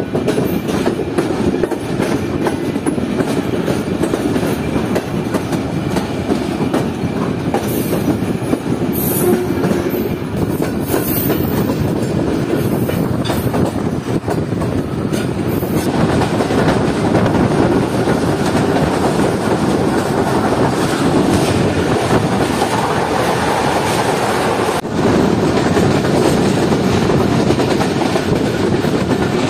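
Pak Business Express passenger train running on the rails, its wheels clattering over rail joints and points as it crosses from the loop line onto the main line: a steady rumble with clickety-clack. It gets louder about halfway through and again near the end.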